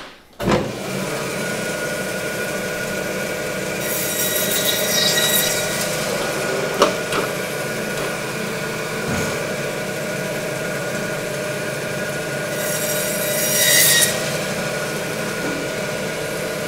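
Meat band saw running with a steady hum, its blade cutting through lamb bone in two louder stretches, about four seconds in and again near the end.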